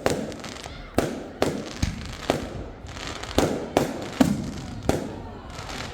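Fireworks going off: about ten sharp bangs at irregular intervals, each followed by a short fading crackle and echo.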